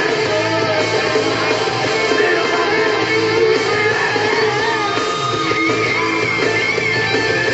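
Rock music with guitar playing steadily from a radio station.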